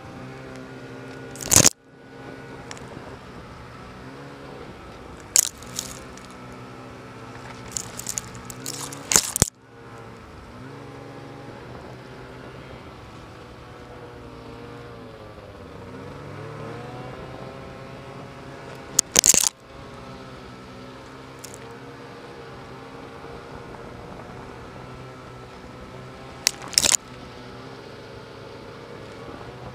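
Snowmobile engine running, its pitch rising and falling with the throttle. It is broken by about five sharp loud knocks, the first a second or two in, a cluster around nine seconds in, one near two-thirds of the way through and one near the end.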